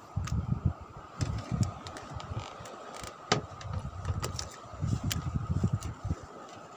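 Wind buffeting the microphone in uneven gusts, with a faint steady whine and a few light clicks.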